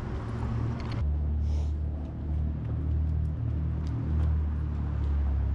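City street traffic: a motor vehicle's engine running close by with a low, steady rumble that gets heavier about a second in. A short, faint hiss comes about a second and a half in.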